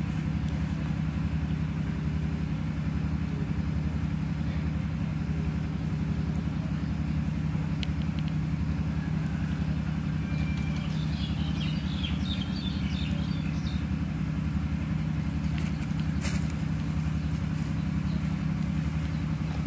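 A steady low motor hum with a slow, even pulse, running without change. A few faint high chirps come about halfway through, with a few light clicks.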